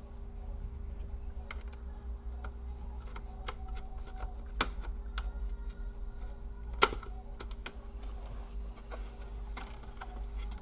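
Irregular light clicks and taps of small plastic and metal parts being handled and worked with tools while a laptop is taken apart, with two sharper knocks about four and a half and seven seconds in. A steady low hum runs underneath.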